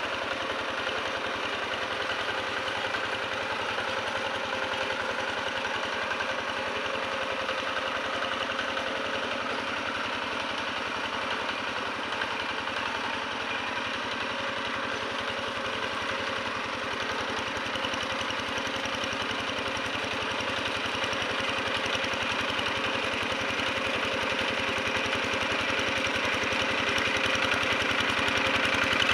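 Two-wheel hand tractor's single-cylinder diesel engine running steadily as it pulls through the mud of a flooded rice paddy. It grows louder over the last few seconds as the tractor comes closer.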